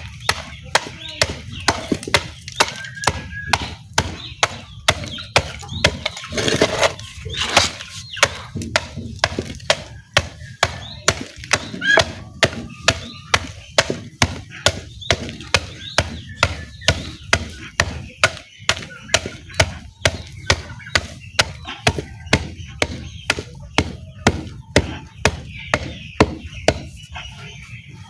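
Lumps of charcoal being broken into smaller pieces with repeated blows, a steady knocking about twice a second.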